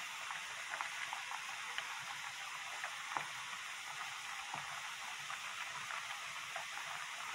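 Water at a rolling boil in a wide pan with thin wheat noodles (somyeon) cooking in it: a steady bubbling hiss with scattered small pops.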